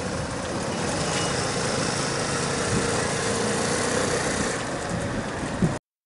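The GoCar's 150cc scooter engine running steadily as the three-wheeler drives off, with a faint steady hum under the noise. The sound cuts off abruptly near the end.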